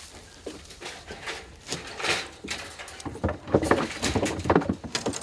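Wooden crate being shifted on a pickup truck's metal bed: a run of knocks, bangs and scrapes, sparse at first and loudest and most frequent in the second half.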